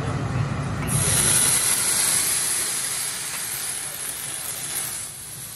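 Alcohol poured onto a hot teppanyaki griddle and set alight for a flambé, flaring up with a loud hiss that starts suddenly about a second in and slowly dies away.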